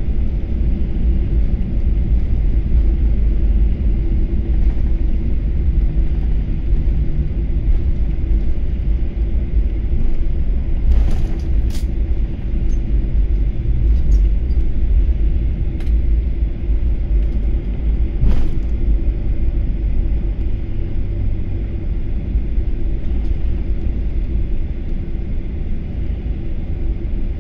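Cabin noise of a Boeing 737 jet airliner rolling along the runway after touchdown: a steady low rumble of engines and wheels that eases slightly as the plane slows, with a few brief clicks.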